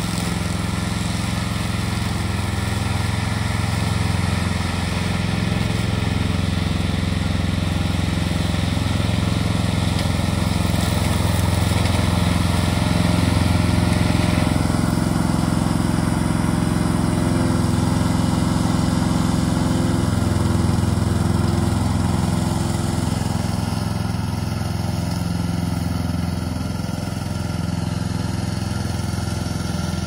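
Remote-control tracked brush cutter mower running steadily, its engine and cutter going as it works through tall dry grass.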